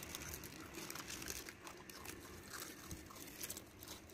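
Dogs crunching and chewing dry biscuits, faint irregular crackles.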